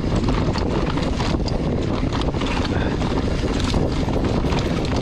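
Wind rushing over the microphone of a camera riding along on a mountain bike in motion, with many short clicks and rattles scattered through it.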